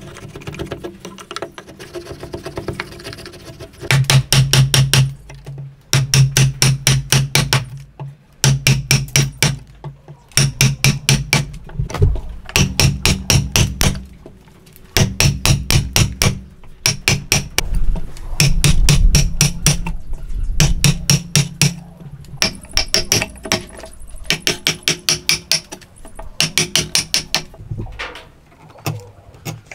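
A hammer tapping a wood chisel in quick runs of light blows, about eight a second, each run lasting a second or so with short pauses between, as the chisel chops waste out of a dovetail socket.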